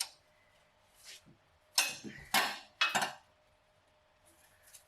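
A handful of metallic clanks and clinks from a socket wrench working against the bolts and metal around the exhaust manifold. The three loudest come close together about two to three seconds in.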